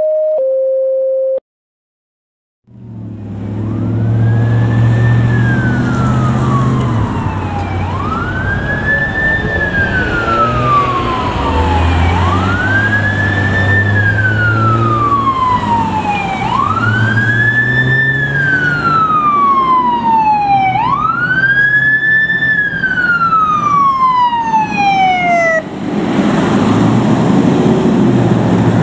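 Two short electronic beeps, a higher tone then a lower one, then a fire engine siren over diesel engine and traffic noise. The siren sweeps up quickly and falls slowly, repeating about every four seconds, then stops near the end as the E-One pumper passes with engine and road noise.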